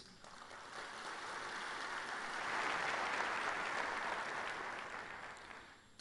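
A large audience applauding, swelling to a peak midway and dying away near the end.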